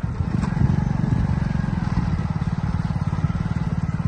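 Motorcycle engine running steadily at low revs, with a fast, even pulse.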